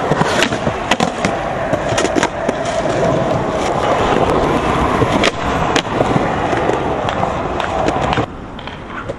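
Skateboard wheels rolling over concrete paving, a steady loud roar broken by frequent sharp clacks of the board. The rolling noise drops away suddenly about a second before the end.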